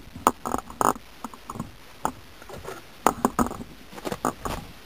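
Footsteps on a path covered in dry leaf litter and twigs: an irregular series of short crunches that come in small clusters, one cluster for each stride.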